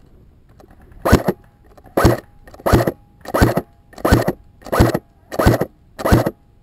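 Eight short, sharp crunching thuds close to the microphone, evenly spaced about two thirds of a second apart, starting about a second in, with a faint steady tone underneath.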